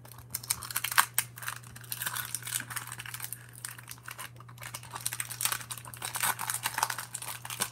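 Paper wrapper of a 1988 Topps Mini baseball card pack being torn open and crumpled by hand: a dense run of irregular crinkles and crackles over a steady low hum.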